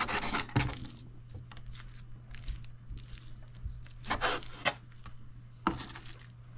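Knife cutting and scraping raw chicken thigh meat off the bone, with short scrapes and tearing sounds: a cluster at the start, more about four seconds in and again near the end. A steady low hum runs underneath.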